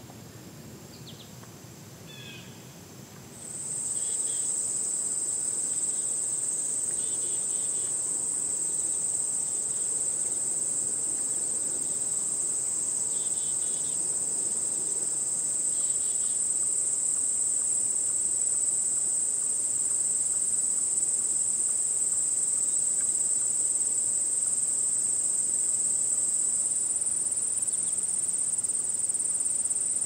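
A few faint bird chirps, then about three and a half seconds in a loud, steady, high-pitched insect buzz sets in and runs on without a break. Short faint chirps come through under it now and then.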